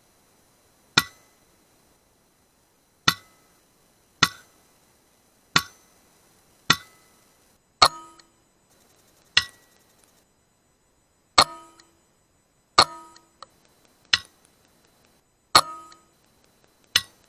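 Sub-12 ft-lb PCP air rifle shots: twelve separate sharp cracks, each with a short metallic ring, one to two seconds apart with silence between.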